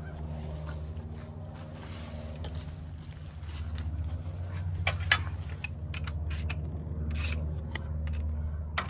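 Wrench turning the track tensioner bolt on a Vermeer SC48TX stump grinder: metal rubbing and scraping with scattered sharp clicks as the bolt is loosened to take tension off the track spring. A steady low engine hum runs underneath.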